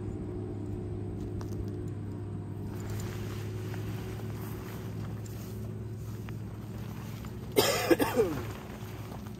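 Nylon tent fabric rustling as the tent is pulled from its bag and unfolded, over a steady low hum. A short, loud burst comes near the end.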